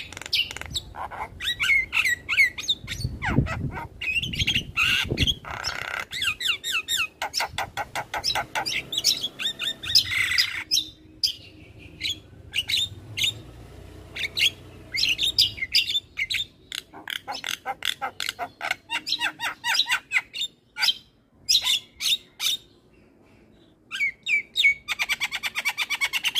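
Javan myna in full song: fast runs of sharp chattering and squawking notes, with a quieter stretch in the middle and a fast rattling run near the end.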